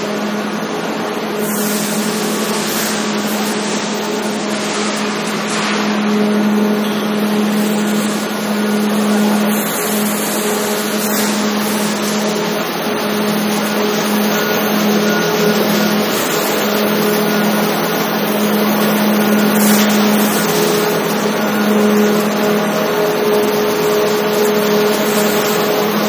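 Clay-preparation machinery in a brick plant running steadily: motor-driven clay-processing machines and belt conveyors carrying clay, with a constant motor hum over a steady mechanical clatter.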